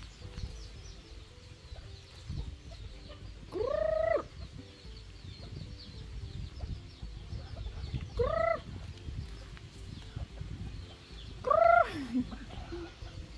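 Chicken calling: three drawn-out calls about four seconds apart, each rising and then falling in pitch, the last one sliding further down at its end. Soft low clucking runs underneath.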